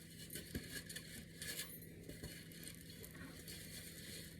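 Faint kitchen handling sounds: a few light clinks and scrapes, over a steady low hum.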